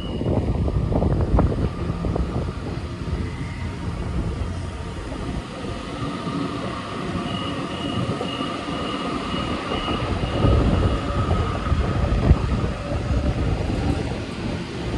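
A Sydney Trains Waratah double-deck electric train passes the platform, its wheels rumbling on the rails over a steady electric motor hum.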